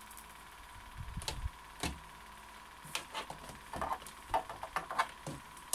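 Fabric strips being rolled and handled at a paused sewing machine: scattered soft rustles and light clicks over a faint steady hum.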